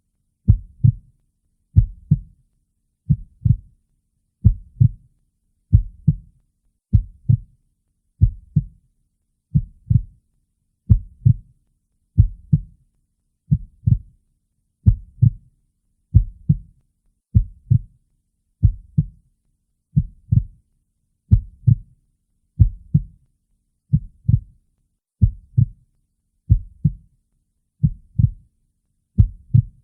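A slow, steady heartbeat, each beat a low double thump (lub-dub), at roughly 45 beats a minute.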